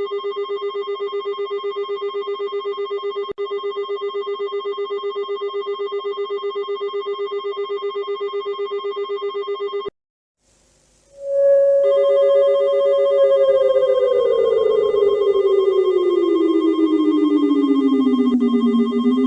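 Emergency alert alarm: a steady, rapidly pulsing buzzing tone that cuts off about ten seconds in. After about a second of silence, a siren comes in and slowly falls in pitch, beginning to rise again near the end, with the pulsing tone sounding again beneath it.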